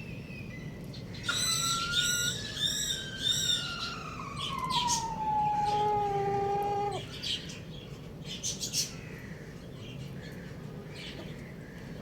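Rooster crowing once: a single long crow of about five and a half seconds that slides down in pitch, levels off and cuts off sharply. A few short high chirps sound over its start.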